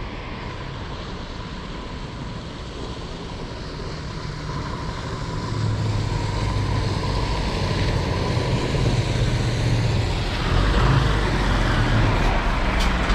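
Truck approaching and pulling up, its diesel engine and road noise growing steadily louder.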